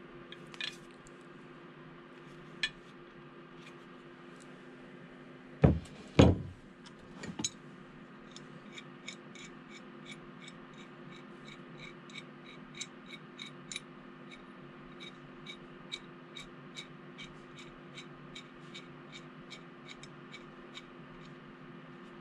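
Forged-steel adjustable wrenches clinking and knocking against each other as they are handled, with two loud metal knocks about six seconds in. From about eight seconds, a long run of light, ringing metallic clicks, about three a second, as the knurled worm screw of a small adjustable wrench is rolled to move its jaw.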